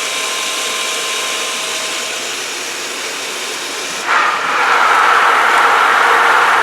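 Pool pump running during a filter backwash: a steady motor whine with a rush of water. About four seconds in it becomes louder and brighter and holds there.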